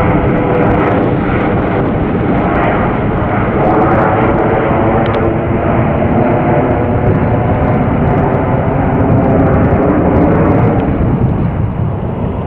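Boeing 747-8F's four GEnx-2B turbofan engines running at high power: a loud, steady jet rumble with several held whining tones, easing off slightly near the end.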